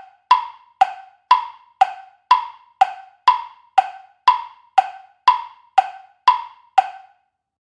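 Quiz countdown timer sound effect: wood-block tick-tock clicks, alternating higher and lower, about two a second, stopping about a second before the end.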